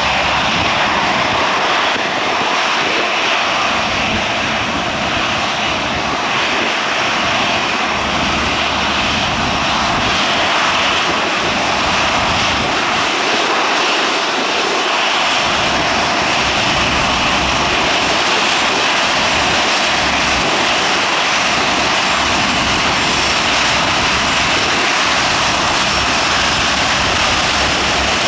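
Airbus A380 prototype's four Rolls-Royce Trent 900 turbofans running at taxi power, a loud, steady jet whine and hiss as the airliner rolls slowly along the taxiway.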